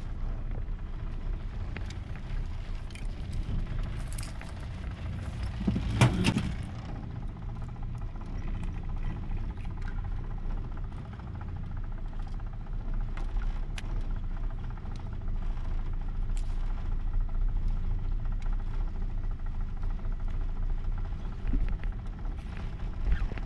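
Motorboat engine running steadily under way, a continuous low rumble. A single brief louder bump comes about six seconds in.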